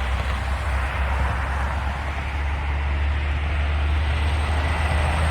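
Diesel freight train running, a steady low rumble with a hiss above it that slowly grows louder.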